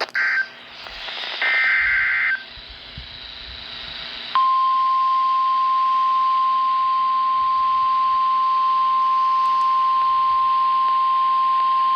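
Emergency Alert System signal on NOAA Weather Radio. It opens with the tail of one digital SAME header burst and then a full one-second burst, both a harsh, raspy data screech, over radio static. About four seconds in, the steady single-pitch 1050 Hz warning alarm tone begins and holds, announcing a new warning.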